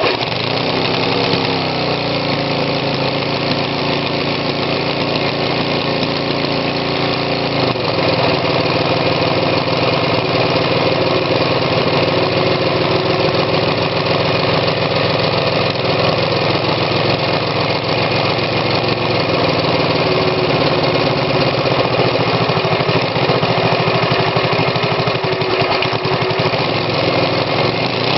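Homemade two-cylinder stacker engine, built from two Briggs & Stratton lawnmower engines and set up to fire as an odd-fire twin, running steadily. Its note shifts and gets a little louder about eight seconds in.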